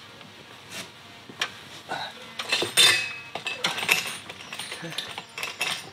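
Metal clinks and knocks as a rolled awning is lifted onto a trailer's roof rack and slid through its metal mounting brackets, loudest about three seconds in.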